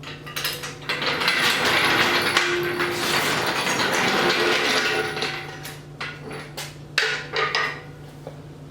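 Metal clattering and rattling for several seconds, then a handful of separate knocks and clanks.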